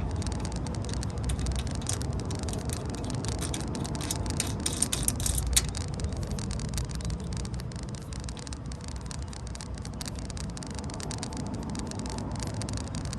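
Metal hand tools and brake hardware clicking and clattering in a quick irregular run of ticks as the caliper bolts are tightened back up, over a steady low rumble.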